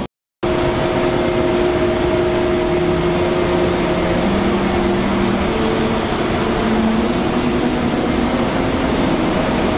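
Electric train in the station: steady loud running noise with humming electric tones from its traction equipment, one of which steps up in pitch several times. The sound cuts in just after the start.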